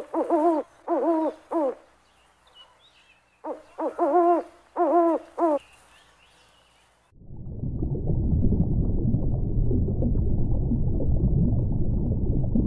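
Owl hooting in two runs of about five short hoots, roughly two a second, each note rising then falling in pitch. About seven seconds in, a steady low rumbling noise takes over.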